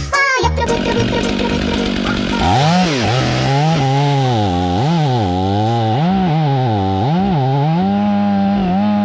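Stihl MS 500i fuel-injected two-stroke chainsaw. From about two and a half seconds in, its engine is revved up and down over and over in quick blips, then held steady at high speed near the end.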